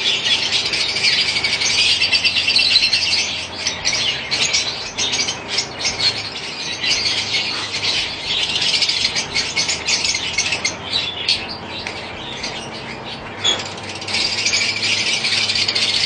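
Budgerigars chattering and squawking in fast, rasping bursts that swell and fade in waves.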